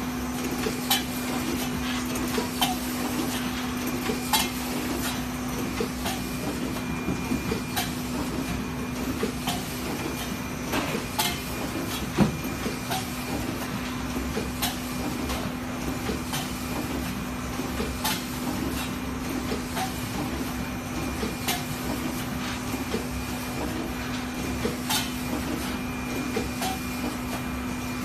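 Horizontal premade-bag bread packaging machine running: a steady hum under a continual, irregular clatter of metallic clicks and clacks from its moving parts, with one louder clack about twelve seconds in.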